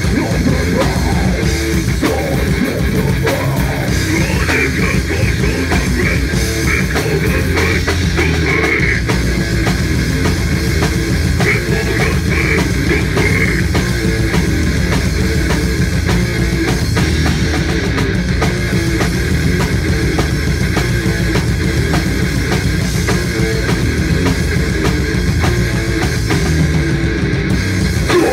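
Live heavy metal band playing loud: electric guitar, bass and drum kit with fast, dense drumming, picked up on a phone's microphone.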